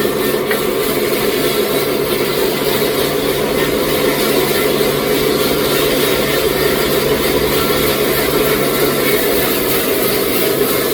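Sawmill machinery running steadily: a loud, even mechanical drone with a constant low hum, without pauses or changes.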